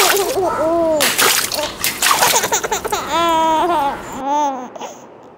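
Water balloons bursting and splashing into a muddy puddle, a few sharp splashes in the first two seconds. A child's laughter and giggles are mixed in.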